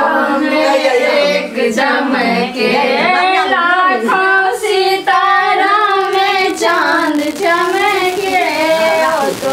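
Female voices singing a song with long held, wavering notes.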